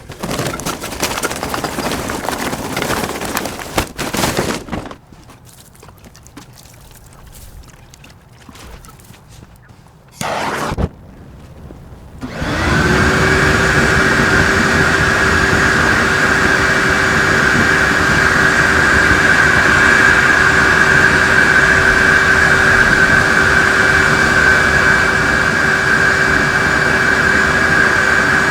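Workshop noise: a loud rough stretch, a short bang near ten seconds, then a motor-driven machine starts about twelve seconds in and runs steadily with a high whine.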